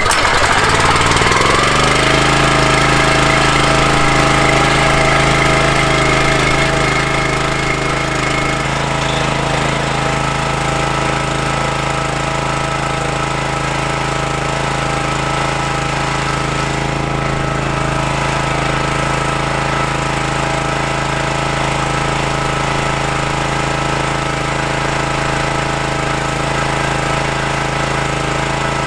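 Small gas engine on a County Line 40-ton log splitter catching right at the start, rising to speed within about two seconds and then running steadily. It is being started for the first time after about 60 days in storage.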